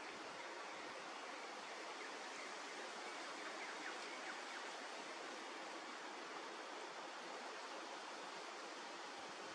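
Steady, even rushing background noise of the outdoors, with no distinct sounds standing out.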